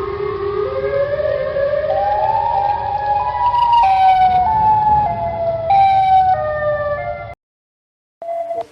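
Electronic siren-style alarm tone from an emergency-alert broadcast. A chord of tones glides slowly upward in pitch for about four seconds, then jumps up and down in steps over a low rumbling noise, and cuts off abruptly about seven seconds in. A steady tone begins just before the end.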